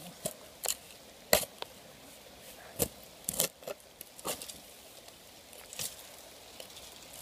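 Digging by hand in wet, leaf-covered ground: about ten irregular, sharp clicks and knocks over several seconds, with the tool striking soil and buried rebar.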